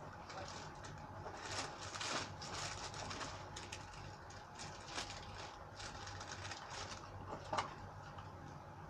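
Irregular clicks and scrapes of a utensil working against a container as conditioner slime is mixed, with one sharper click about seven and a half seconds in.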